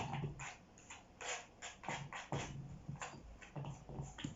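Sliced cucumber being tipped and scraped into a bowl: a run of irregular knocks, clatters and scrapes.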